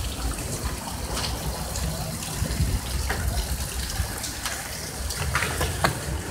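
Steady rush of running water from the hailstorm's runoff, with scattered light ticks over it.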